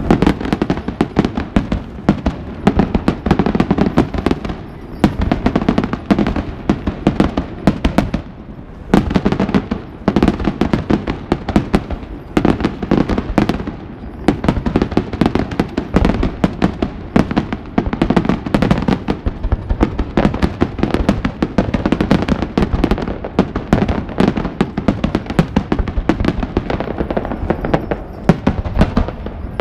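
Aerial fireworks display: shells bursting in quick succession, a dense run of bangs and crackling several a second, with a few brief lulls.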